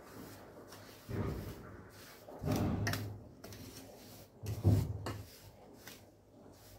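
A spatula scraping and stirring a crumbly besan, ghee and sugar mixture in a stainless steel bowl, three rough strokes about a second and a half apart.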